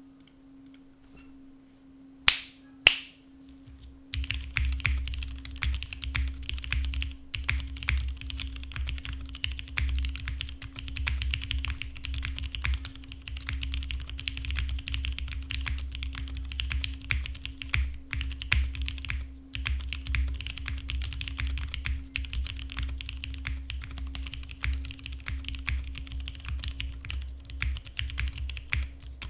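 Typing on a Monokei x TGR Tomo keyboard with Cherry MX Black linear switches (broken in, lubed with 205g0, Durock films), GMK keycaps and an aluminum top-mount plate: continuous fast keystrokes, each with a low thock under the clack. Before the typing starts there are two sharp snaps about half a second apart, and a faint steady hum runs underneath.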